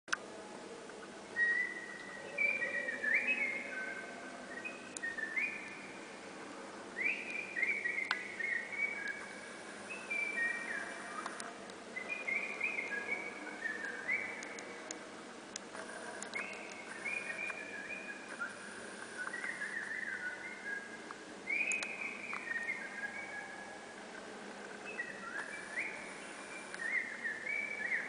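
A person whistling bird-song imitations: repeated phrases of quick rising and sliding notes, a new phrase every few seconds, each ringing on in the long echo of a stone cathedral.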